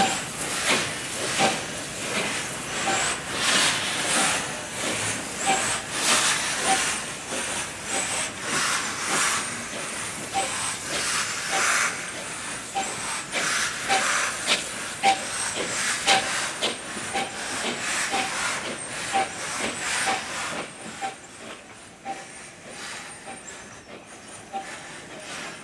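Austerity 0-6-0ST saddle-tank steam locomotive chuffing slowly while shunting, with an even series of exhaust beats and a hiss of steam. The beats fade away about 21 seconds in as the locomotive eases to a stop.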